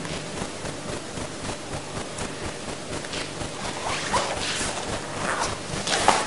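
A performer's feet scuffing and sliding on a stage floor, with clothing rustle, during Meyerhold's biomechanics etude 'Throwing the Stone', over a steady hiss. Four or so short scuffs come in the second half, the loudest near the end.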